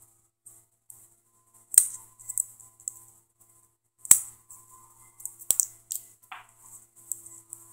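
A padlock and a beer-can shim being handled: a few sharp metallic clicks and clacks, the loudest about two and four seconds in, with faint crinkly ticks between.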